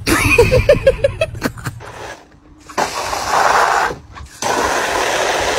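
A garden hose spray nozzle jets water into a plastic kiddie pool in two hissing bursts of about a second each, with a short break between. Near the start, before the spray, there is a quick run of short pitched sounds.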